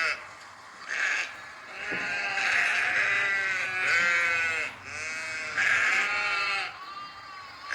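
Sheep bleating over and over, about six separate bleats in a row, the last one fainter.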